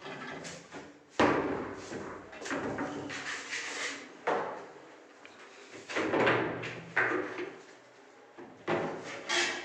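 Kitchen cabinet doors and drawers being opened and shut: several sudden knocks and bangs, with rubbing and sliding noise between them.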